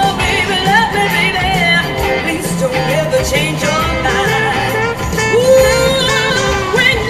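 Music: a song with a singing voice over instruments and a repeating bass line.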